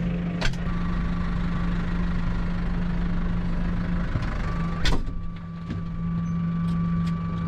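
Tractor engine running steadily, with a sharp click about half a second in and a louder knock about five seconds in.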